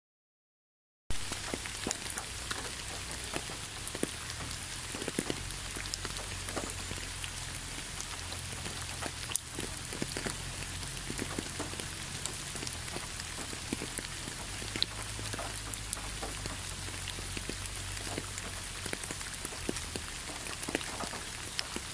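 Steady rain falling on leaves, branches and the ground, a dense patter of close drops over a low rumble. It starts abruptly about a second in.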